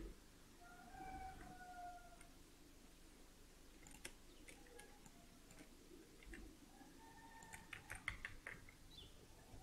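Near silence with faint computer mouse and keyboard clicks, a quick run of several clicks about eight seconds in. A faint held tone sounds twice, about a second in and again around seven seconds.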